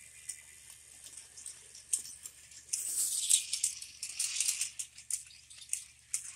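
Plastic toy train wagons rattling and clicking as they run over plastic track, a dense clatter that grows louder about halfway through as the wagons pass close by.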